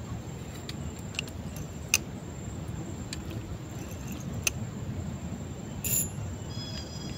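Scattered sharp clicks and taps of a fishing rod and reel being handled while tugging at a snagged line, over a steady low rumble. There is a short scrape about six seconds in, and insects begin chirping near the end.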